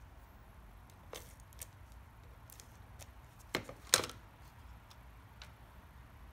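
Light taps and paper handling on a craft desk, with two sharp plastic clicks about three and a half and four seconds in as a tape-runner adhesive dispenser is handled and set down.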